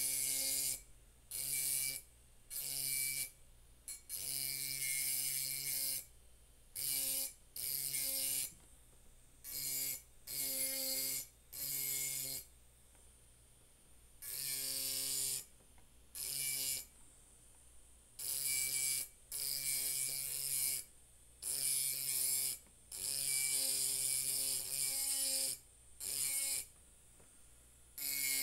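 Handheld rotary engraving pen grinding into a glass bottle. It stops and starts many times in short bursts of about a second, each a buzzing motor whine with a gritty hiss.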